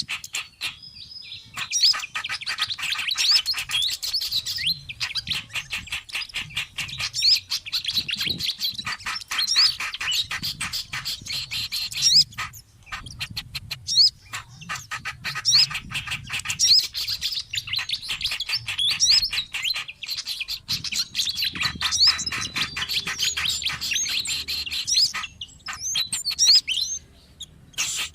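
Bird-lure recording of small songbirds calling in a noisy, agitated chatter: a dense run of rapid high chirps and quick pitch sweeps, broken by a few short pauses.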